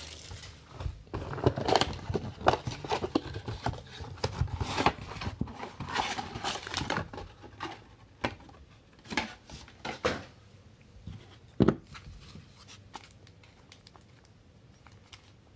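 Football trading cards and a foil card-pack wrapper being handled: a busy run of short snaps, crinkles and rustles that thins out after about ten seconds to a few single clicks.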